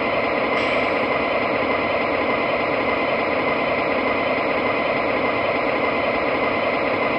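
MTH model diesel locomotive's onboard sound system playing a steady diesel engine running sound, small-speaker and noisy, with the train underway.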